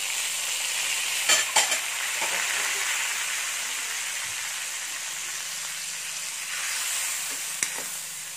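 Asparagus and garlic sizzling in butter and freshly added lemon juice in a hot wok, a steady frying hiss. A metal utensil knocks sharply against the wok two or three times about a second and a half in, and once near the end.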